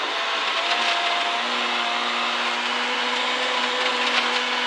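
Citroën C2 R2 Max rally car's 1.6-litre four-cylinder engine pulling steadily in fourth gear, heard from inside the cabin under a constant rush of tyre and road noise on snow. The engine's note holds a steady pitch, settling slightly lower about a second and a half in.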